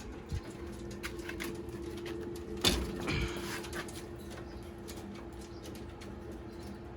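Racing pigeons in a loft, faintly cooing and stirring, over a steady low hum. A sharp knock a little under three seconds in is followed by about a second of rustling.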